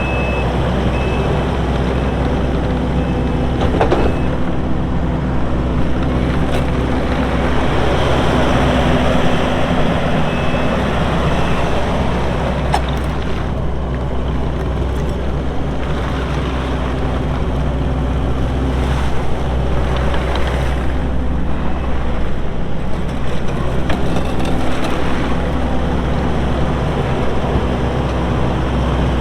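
Kubota SVL75-2 skid steer's four-cylinder turbo diesel engine running steadily under operation, its pitch shifting up and down at times as the machine is worked.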